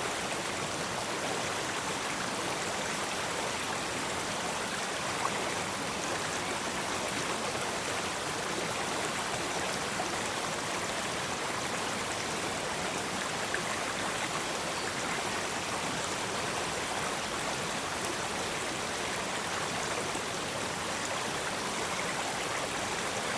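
A small river running over rocks: a steady rushing and babbling of water, with an occasional faint splash.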